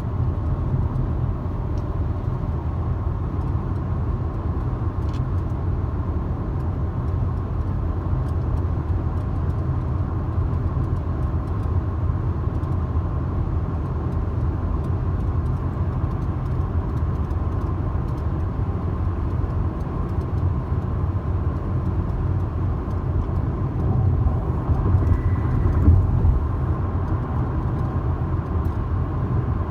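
Steady road and drive rumble of a 2017 Honda Civic on the move, with faint intermittent rattling clicks from somewhere in the car. About 25 seconds in there is a louder bump.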